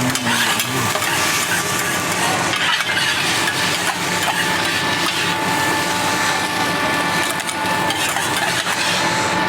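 Rice noodles and flat rice noodles sizzling on a hot teppanyaki iron griddle, with spatulas scraping and clinking against the metal plate as they are stir-fried.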